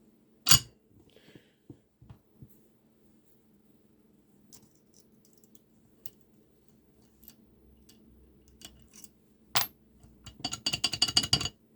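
Small metal clicks and clinks as lock picks and a euro dimple lock cylinder are handled: a sharp click about half a second in, scattered faint ticks, then a quick run of ringing metallic clinks near the end.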